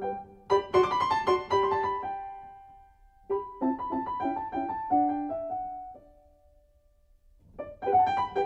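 Background piano music: short phrases of struck notes, each dying away, with two brief pauses, about three seconds in and again near the end, before the notes pick up.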